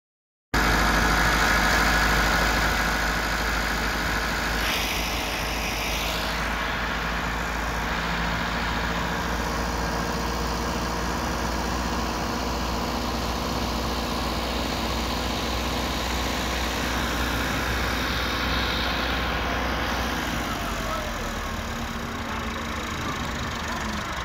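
A diesel engine idling steadily.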